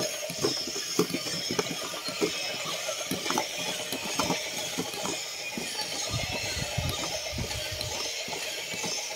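Battery-powered walking gorilla toy's motor and plastic gearbox ticking and rattling in a steady run of irregular clicks as it walks across wooden boards. A low rumble joins in for about two seconds past the middle.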